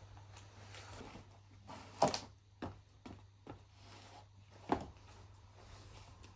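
Soft clothing and bag rustling with a few light knocks as a person takes off a tote bag, a backpack and a jacket. The two loudest knocks come about two seconds in and near five seconds in.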